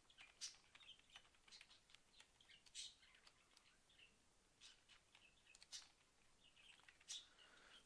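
Near silence with faint, scattered clicks of typing on a computer keyboard.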